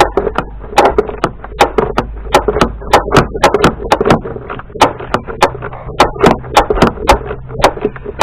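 Ratchet clicking in short back-and-forth strokes, sharp clicks a few times a second, as a fastener is slowly worked loose.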